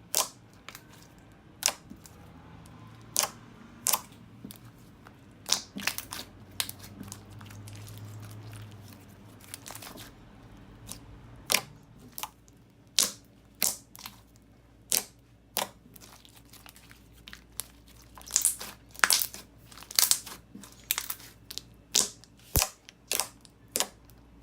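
Slime with Cheetos mixed in being folded and pressed by hand, making irregular sharp clicks and pops, about one a second and more often near the end.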